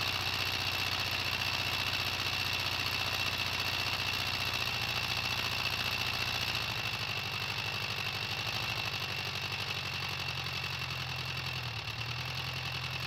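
LEGO model of a Detroit Diesel 4-71 engine running steadily: a continuous mechanical drone with a steady high whine over it, shifting slightly near the end.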